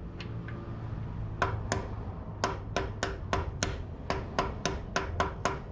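Hammer lightly tapping a 17 mm socket to drive a bushing into place, a steady run of sharp metallic taps, about three a second, each with a short ring. The taps start in earnest about a second and a half in.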